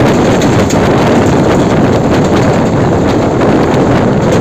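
Wind buffeting the microphone over the steady running noise of a Mumbai suburban local train at speed, heard from its open doorway, with light clicking of wheels over the track.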